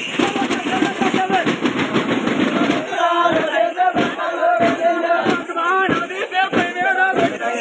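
Tappeta gullu dancers beating small frame drums (tappeta) in fast, dense rolls. About three seconds in, the men start chanting loudly in unison over the continuing drum strokes.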